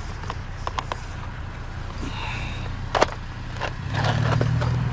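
A vehicle engine idling with a steady low hum, louder near the end, with a few knocks and clanks as a small metal chair is handled.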